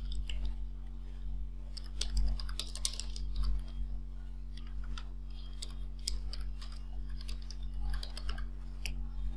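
Computer keyboard being typed on, keys clicking in several quick runs of keystrokes, over a steady low electrical hum.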